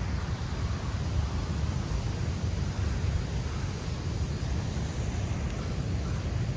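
Wind buffeting the phone's microphone with a deep, fluttering rumble, over the steady wash of Pacific surf.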